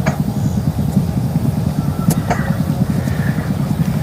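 Wind buffeting the microphone outdoors: a steady, loud, low rumble with a couple of faint clicks about two seconds in.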